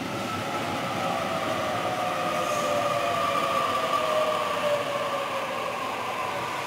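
Sydney Trains Waratah double-deck electric train running past along the platform: rumble of the cars with a whine from the traction equipment in two tones that slowly fall in pitch, as the train slows.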